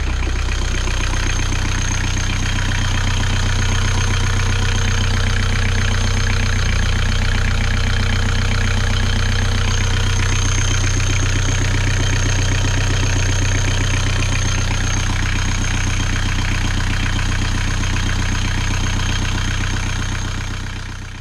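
Inboard marine diesel engine idling steadily, heard close up through an open floor hatch, with a thin high whine over the low running note. The sound fades out near the end.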